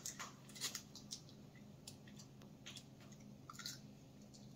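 Someone chewing crab meat close to the microphone, faint, with a few small mouth clicks now and then.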